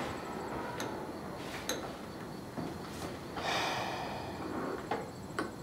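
Light clinks of tableware (spoons, bowls and cups) at a meal, several short sharp clicks spread out, with a breathy sip or sniff lasting about a second, a little past halfway.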